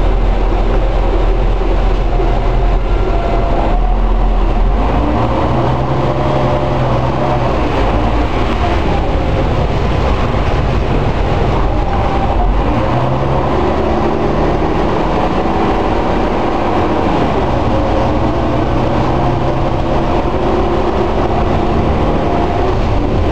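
Gardner 6LXCT six-cylinder turbocharged diesel of a Leyland Olympian double-decker bus, heard from inside the lower saloon. The engine rumbles low at first, then its note rises and drops back several times as the bus pulls away and accelerates through the gears.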